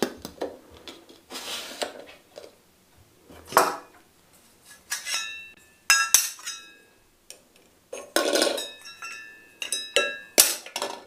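Ceiling fan parts handled during assembly: the plastic covers and the metal downrod knock and clink together, some clinks ringing briefly. The clinks cluster around halfway and again near the end.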